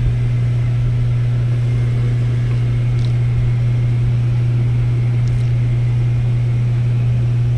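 Steady low motor hum holding one even pitch, over a rumbling haze.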